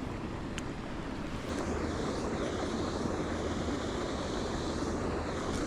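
Wind on the microphone, with a steady low motor hum coming in about a second and a half in and holding on.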